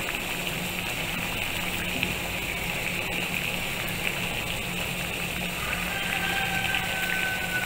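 Water with butterfly pea flowers at a rolling boil in a stainless steel saucepan on a gas stove: a steady bubbling hiss over a low steady hum. A faint thin high tone comes in near the end.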